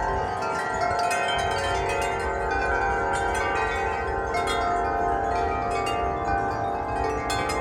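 Wind chimes ringing without pause in strong wind: many overlapping tones, each fresh strike layering over the ring of the last, with a low wind rumble underneath.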